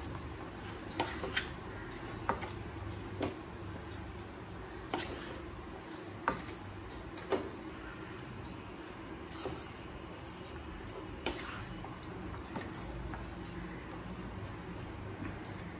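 Flat spatula stirring cooked rice in a kadai, scraping the pan and knocking against it in irregular short clicks every second or so, over a low steady background hum.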